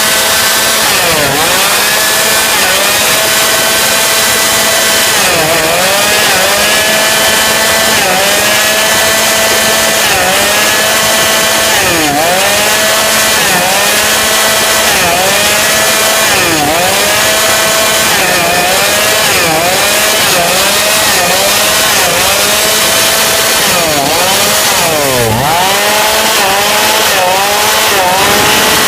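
TOPSUN 5600 two-stroke petrol chainsaw running loudly at high speed, its engine pitch repeatedly dropping sharply and climbing back, every second or two, more often toward the end.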